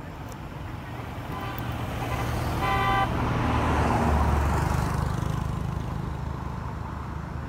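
A motor vehicle passes by, its engine rumble growing louder to a peak about four seconds in and then fading away, with a short horn toot about three seconds in.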